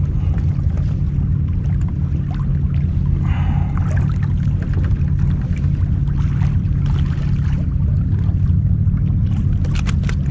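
Steady low rumble of a boat on the water, with a brief brighter rustle about three seconds in and a few light clicks near the end.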